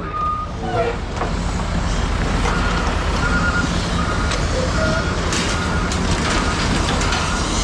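Heavy vehicle engine running with a steady low rumble, and a reverse alarm beeping repeatedly from a couple of seconds in as a machine backs up.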